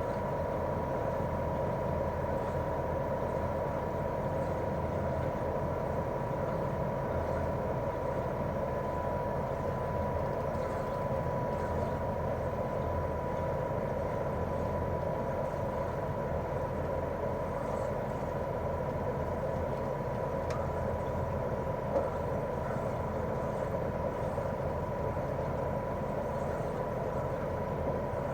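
Daikin R28RMV mini-split outdoor unit running steadily in cooling mode, with its inverter-driven twin-cylinder swing compressor and propeller fan. It makes an even hum with a constant whine above it, and there is a single faint click about three-quarters of the way through.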